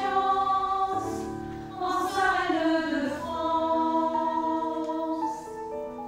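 A choir singing slow, held chords, the notes changing about once a second.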